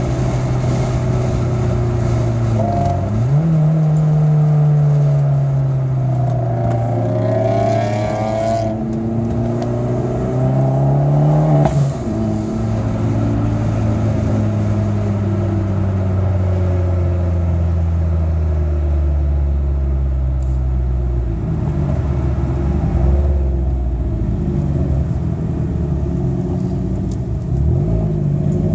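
Car engine heard from inside the cabin, pulling up through the revs for several seconds with a gear change about twelve seconds in, then easing off and slowly falling to a lower steady pitch.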